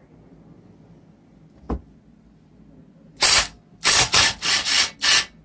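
A single click, then a Makita cordless driver run in five short trigger bursts from about three seconds in, working a bolt loose while the mini-bike's exhaust and stock engine are being removed.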